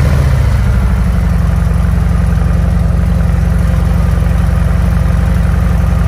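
Harley-Davidson FXDR 114's Milwaukee-Eight 114 V-twin idling through a new baffled aftermarket exhaust, settling from its start-up into a steady, loud idle within the first second.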